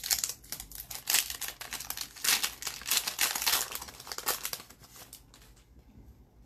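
Hockey card pack wrapper crinkling as it is torn open and handled, a dense crackle for about four seconds before dying away to faint handling noise.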